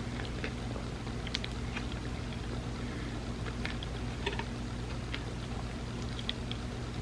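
Close-miked chewing of a soft dessert lasagna, scattered small wet mouth clicks over a steady low hum.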